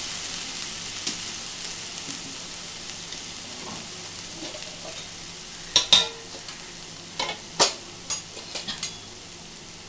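Ginger-garlic-green-chilli paste sizzling in hot oil in a non-stick frying pan: a steady hiss that slowly dies down, with several sharp clicks in the second half.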